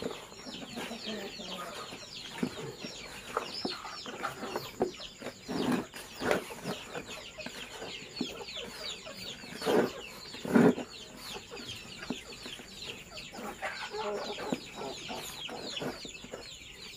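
Indonesian kampung chickens: a flock of chicks peeping continuously in short, high, falling chirps, with a few louder, lower clucks, the strongest two about ten seconds in.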